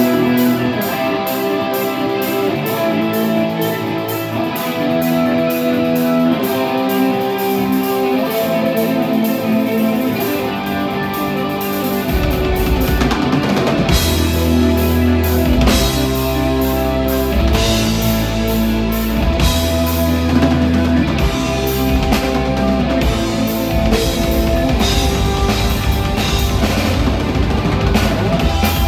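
Live metal band playing without vocals: a lead electric guitar plays a melody of held, stepping notes over a drum kit. About twelve seconds in, a heavy low end of bass and kick drum comes in and the music fills out.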